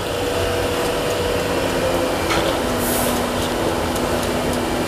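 A steady motor hum with a few faint steady tones, and a brief soft hiss about three seconds in.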